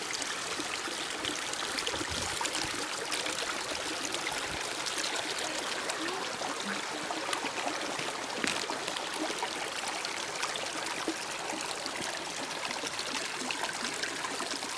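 Shallow creek running and trickling over stones, a steady babble of water.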